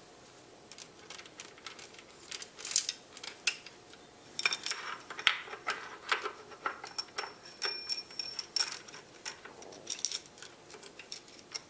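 A steel roller chain and sprocket clink and rattle as they are fitted by hand onto the oil pump of a Honda CBR1000F engine. It is a run of light metal clicks that becomes busier about four seconds in, some of them ringing briefly.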